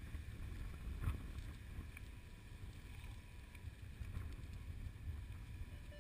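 Wind buffeting an outdoor microphone: a low, steady rumble, with a single sharp knock about a second in.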